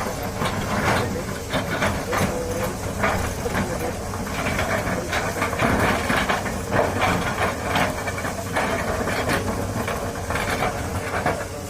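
Doosan DX200A excavator's diesel engine running steadily while it digs, with repeated knocks and scrapes from the work and a stretch of hissing about halfway through.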